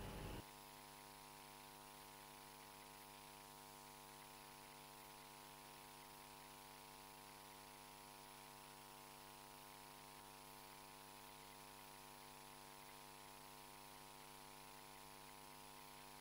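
Near silence: a steady electrical mains hum with faint hiss on the audio line, after the louder room sound cuts off about half a second in.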